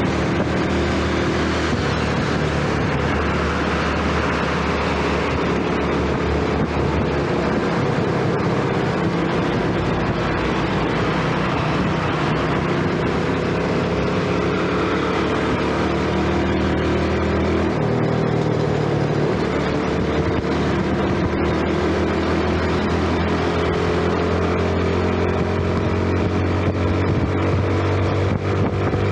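Yamaha underbone motorcycle's small single-cylinder engine running under way, its pitch climbing slowly as it gathers speed, dropping once about two-thirds through, then climbing again, over a steady rush of wind noise.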